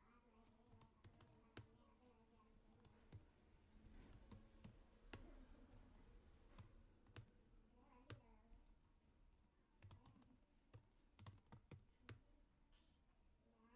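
Faint, scattered computer keyboard keystrokes and mouse clicks, irregular single clicks over a quiet background.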